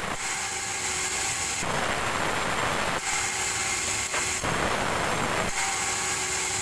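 Band saw mill sawing a petai timber log into planks. It alternates about every second and a half between a high steady whine and a harsher, noisier sawing sound.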